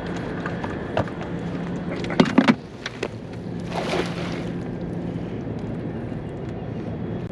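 Boat motor running with a steady low hum, with a few sharp knocks on the boat about two seconds in and a brief rushing noise a little later.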